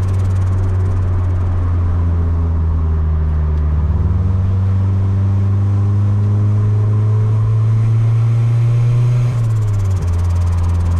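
Turbocharged Honda D16Y8 1.6-litre four-cylinder engine in a Civic, running under way. Its note holds steady, climbs slowly for several seconds, then falls quickly about nine seconds in.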